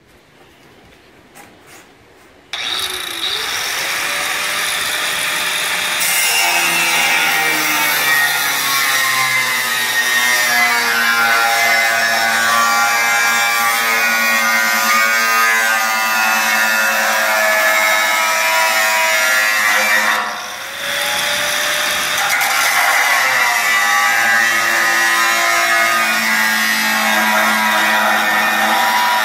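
Electric angle grinder with a cut-off wheel switching on about two and a half seconds in, spinning up, then cutting into the sheet-metal rim of a bathtub, its pitch wavering as the disc bites. Around twenty seconds in it briefly drops off, spins back up and cuts on.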